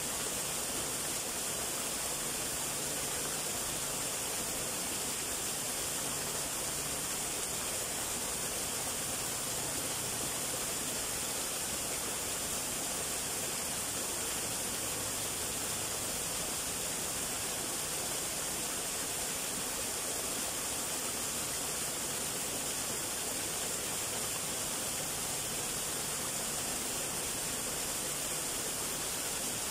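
A small waterfall, two thin streams falling from a rock wall and splashing into a shallow pool, gives a steady, even rush of water that is bright and hissy and does not change.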